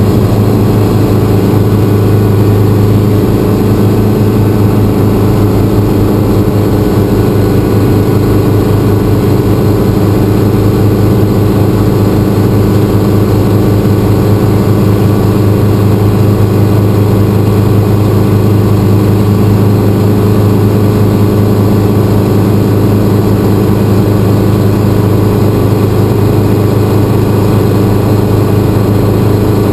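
A light helicopter's engine and main rotor running steadily, heard from inside the cockpit. A loud, even low hum with a fast, regular pulsing from the blades.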